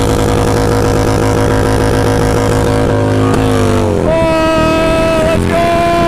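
Motorcycle engine held at high revs during a burnout, the rear tyre spinning on concrete. The revs sag about three and a half seconds in, then are held steady at a higher pitch, with a brief dip about a second and a half later.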